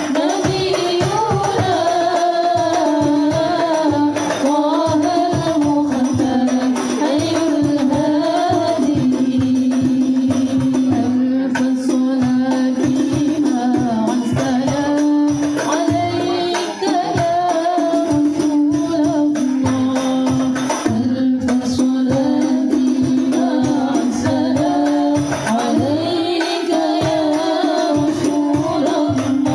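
Sholawat banjari: a group singing Islamic devotional praise songs to the Prophet, in long held melodic lines, over rebana frame drums beating a steady, busy rhythm.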